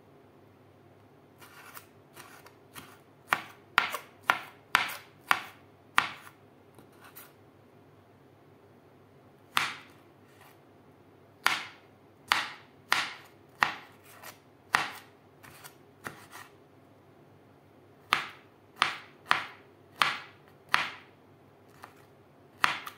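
A knife chopping firm watermelon rind into cubes on a wooden cutting board. The sharp knocks come about two a second, in three runs with short pauses between them.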